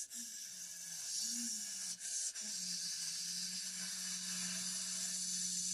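Steady hiss, with a low hum beneath it that wavers at first and then holds steady from about two seconds in.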